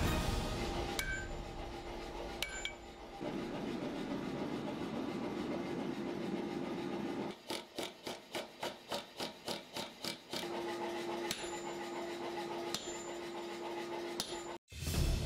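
Power hammer striking hot steel: a run of about a dozen even blows at roughly four a second in the middle. Before it come two single sharp strikes, and a steady hum runs under most of the rest.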